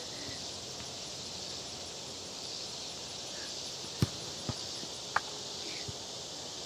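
A soccer ball kicked on a grass lawn: one sharp thump about four seconds in, then a fainter knock half a second later. A short high squeak follows, all over a steady high background hiss.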